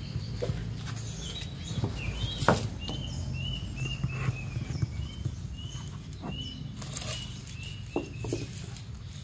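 A small bird chirping over and over in short, high, arched notes, often in quick runs of two or three. Scattered light clicks and knocks, as from a plant and its container being handled, come in between.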